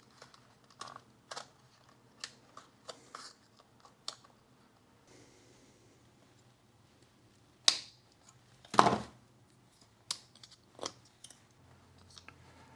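Small scattered clicks and snips from taking apart an old Eveready 266 battery to get at its leads, with two louder sharp snaps about eight and nine seconds in.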